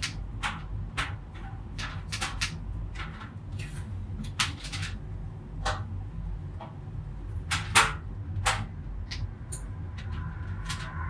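Scissors clicking and snipping irregularly at an auxiliary audio cord, with sharp snaps of the blades and cable handling over a steady low hum.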